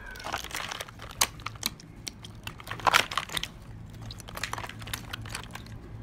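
Hands kneading clear slime among ice cubes in a basin of ice water: irregular wet crackles and clicks, the loudest about three seconds in.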